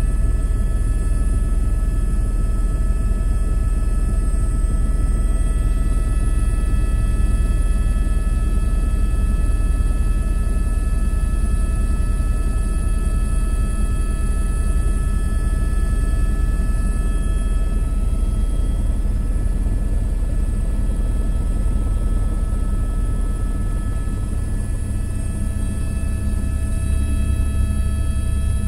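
Helicopter in flight: a loud, steady rumble of rotor and engine with a constant high whine above it.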